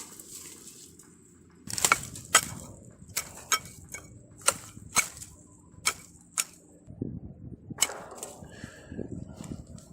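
A home-made multi-purpose hatchet striking wood: a dozen or so sharp, short chops about every half second, beginning after a quiet second and a half.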